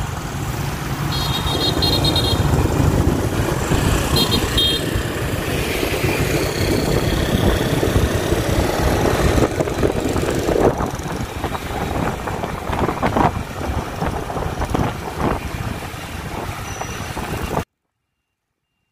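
Busy street traffic, with motorbike and car engines running, and two short bursts of horn beeping in the first few seconds. The sound cuts off abruptly near the end.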